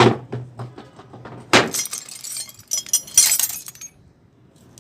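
Metal hand tools clattering: three sharp knocks about a second and a half apart, each followed by a brief rattle and clink.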